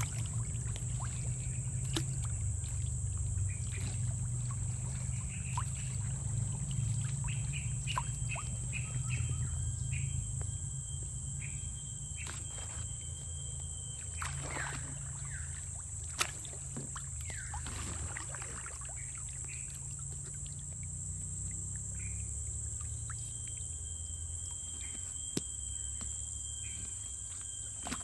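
Tropical riverside ambience: a steady high-pitched insect drone with short bird chirps repeating throughout, and the swish of kayak paddle strokes in the water, most noticeable about halfway through.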